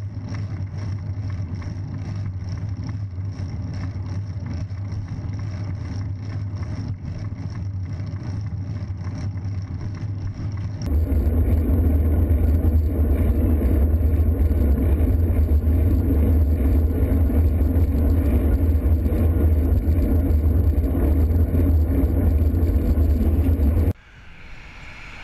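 Steady rushing wind noise on the microphone of a bicycle-mounted camera while riding, mixed with road traffic. It turns louder and deeper about eleven seconds in, then drops off suddenly near the end.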